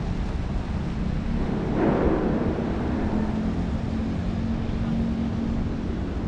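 Outdoor city ambience: a steady low rumble with wind buffeting the microphone. There is a brief louder swell about two seconds in, and a steady low hum starts about a second later.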